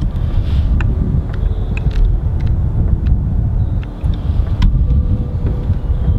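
Wind buffeting the microphone in a loud, uneven low rumble, with scattered light clicks of footsteps.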